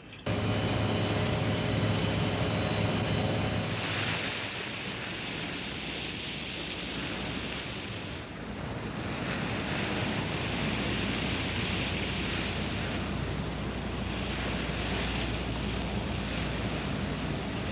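Warship under way at sea: water rushing along the hull in swells that rise and fall every few seconds, over a steady low engine rumble. For the first few seconds a steady machine whine of several fixed tones sits on top, then stops.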